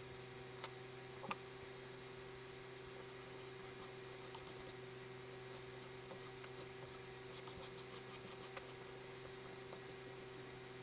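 Kinetic sand being scratched and drawn in with a tool, sped up to four times speed: a quick run of short scratchy strokes from about three seconds in until near the end, after two light clicks in the first second and a half. A steady low hum sits underneath.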